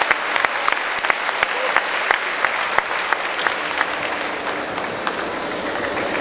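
Audience applauding a point just awarded in a kendo bout, with many sharp hand claps that thin out over the last couple of seconds.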